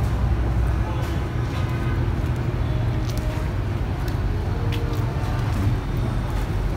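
Steady low rumble of outdoor background noise, with faint distant voices and a few light clicks.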